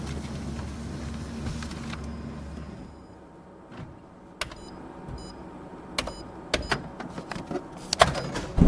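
Office printer's motor running steadily, then stopping about three seconds in. A series of sharp mechanical clicks and clacks from the paper-handling mechanism follows, loudest near the end.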